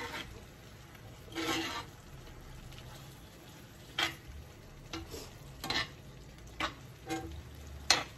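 Metal spoon stirring shrimp in a sauce in a cast-iron skillet, scraping and clicking against the pan in irregular strokes: one longer scrape about a second and a half in, then a scatter of short ones. Under it the sauce simmers with a faint sizzle.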